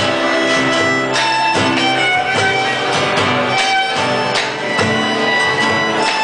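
An Argentine zamba played live on violin and acoustic guitars. The violin carries the melody over a steady strummed guitar beat.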